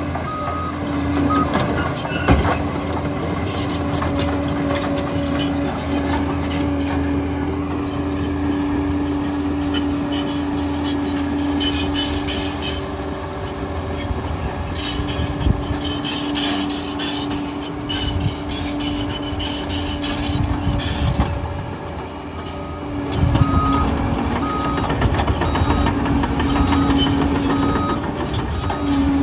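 Liebherr 746 crawler bulldozer's diesel engine running steadily under load, with scattered metallic clanks. Its reversing alarm beeps evenly near the start and again through the last six seconds as it backs up.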